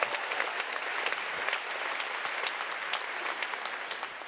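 Large audience applauding: dense, steady clapping from a packed theatre.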